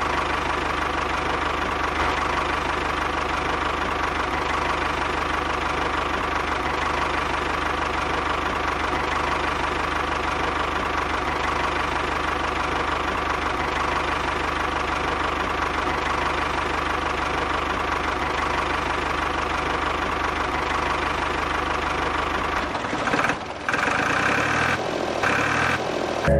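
Tractor engine running steadily, driving a spading machine. Near the end the low hum drops away and the sound changes.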